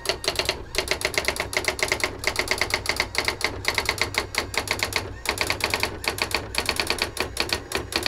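Brother AX-22 daisy-wheel electronic typewriter printing its self-demo text on its own: a fast, even run of character strikes, about ten a second, with a couple of brief pauses.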